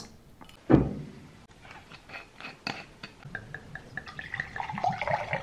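Homemade rosé wine poured from a bottle into a glass tumbler, the glass filling through the second half. A single low thump comes just under a second in.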